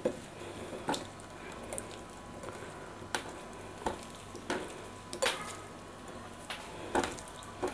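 Hands squishing and turning small anchovies in a wet, oily spice marinade, with irregular sharp clicks of fingers and fish against the plate.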